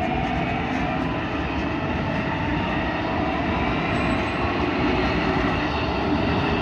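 Commuter train running past a level crossing, a loud, steady rumble of wheels on rails.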